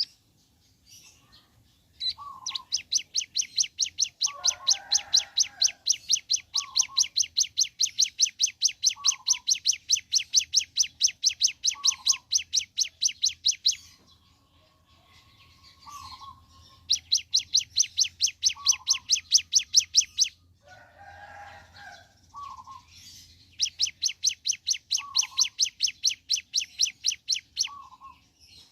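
Ciblek gunung, a prinia, singing its long rattling trill ('ngebren'): a fast, even run of high notes held for several seconds, three times, with short gaps between. Short lower calls recur every couple of seconds beneath it.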